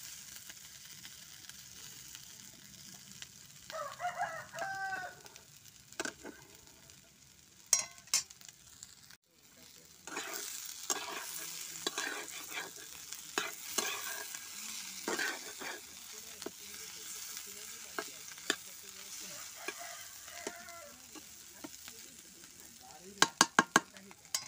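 Chopped potatoes, beans and capsicum sizzling in a kadai as a wooden spatula stirs and scrapes them around the pan. A rooster crows once about four seconds in, and near the end there is a quick run of sharp knocks.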